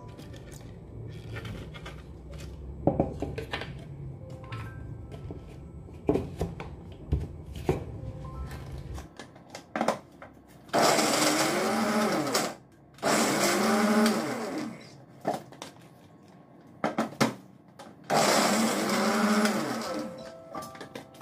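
Electric blender run in three short pulses of about two seconds each, its motor whine climbing and then dropping in pitch every time, chopping raw cauliflower florets into cauliflower rice. Before the pulses come scattered knocks and clicks of the jar being handled and set on the base.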